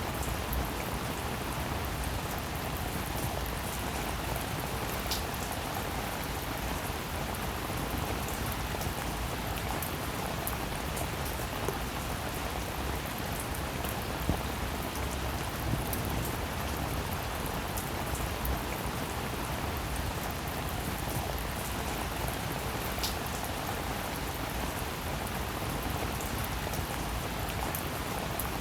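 Steady rain falling, with a few louder single drops ticking through it.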